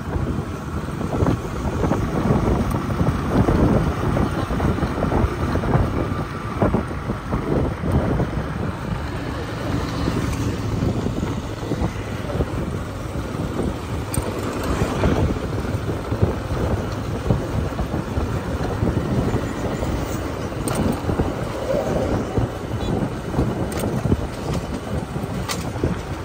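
Motorcycle riding along a road: wind buffeting the microphone over the bike's engine and tyre noise, fluctuating and unbroken.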